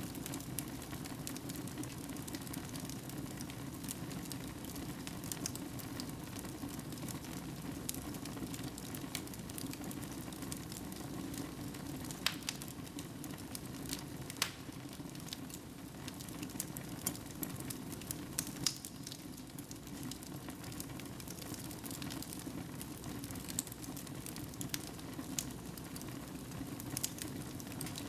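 Fire burning in a fireplace: a steady low rushing with scattered crackles and pops throughout, a few sharper pops near the middle.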